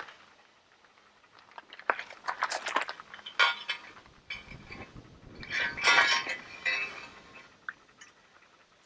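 Metal clinks, clanks and scrapes as a heavy steel tooth bar is handled and set against a tractor's loader bucket, a series of irregular knocks with brief ringing.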